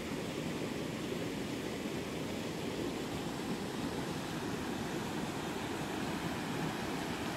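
Steady wind rushing over the microphone, an even hiss without breaks.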